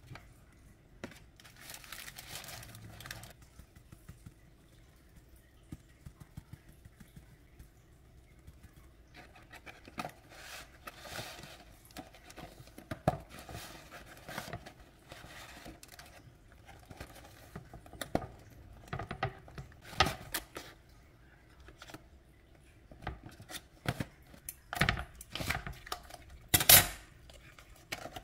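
Paper and plastic food packaging handled by hand: irregular rustling and crinkling with small taps and clicks, louder crinkles near the end.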